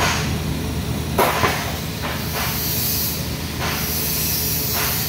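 TIG welding arc running steadily on carbon steel pipe during the cap pass: an even hiss over a low electrical hum, with a few brief clicks, the loudest about a second and a half in.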